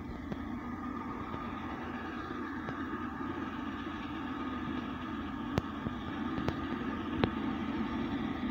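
Chesapeake and Ohio J3a 4-8-4 steam locomotive No. 614 approaching with a passenger train: a steady rumble that grows slightly louder, with a few sharp clicks in the second half. It is heard through a TV speaker, recorded off the screen.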